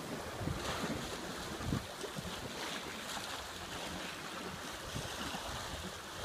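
Wind buffeting the microphone in irregular low gusts over the steady rush of water along the hull of a sailing yacht under way.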